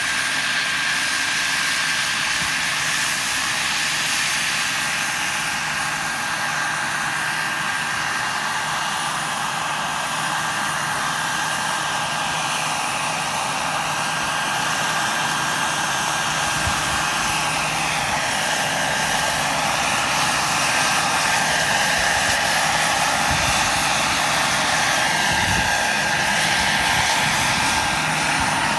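Large radio-controlled scale BK 117 model helicopter hovering low: a steady high whine from its drive over the hiss of the spinning rotor, growing a little louder in the second half.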